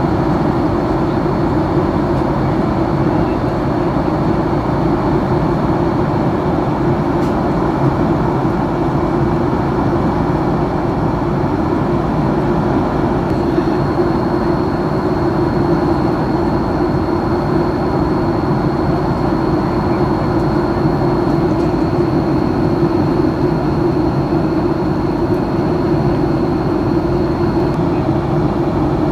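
Airliner cabin noise: the steady roar of jet engines and rushing air heard from inside the cabin. A faint high whine sits over it from about halfway in until near the end.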